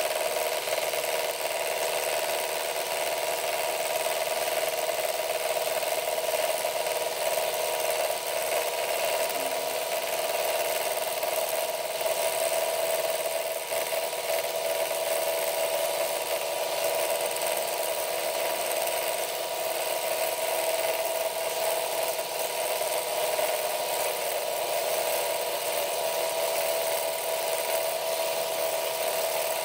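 A power tool working metal, running steadily without stopping: a constant mid-pitched hum with a hissing, gritty noise over it.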